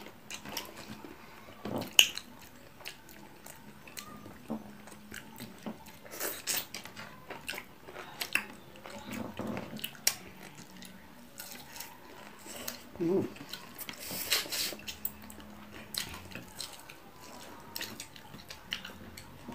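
Close-up eating sounds: chewing and biting, with scattered short mouth clicks and smacks, while fried tilapia and rice are eaten by hand.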